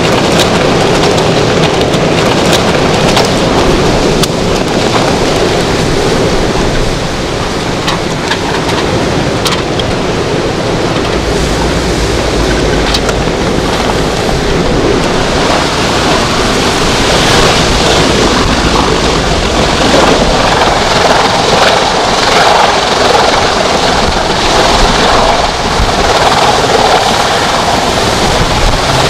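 Hurricane wind blowing hard and buffeting the microphone, a loud, steady rush that strengthens about halfway through, with a few sharp clicks in the first half.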